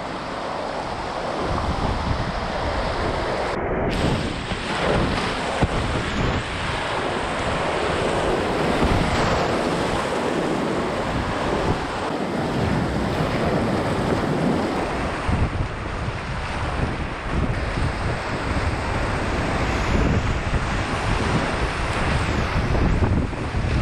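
Steady rush of a high-water river running near flood stage, with wind buffeting the microphone in a fluttering low rumble.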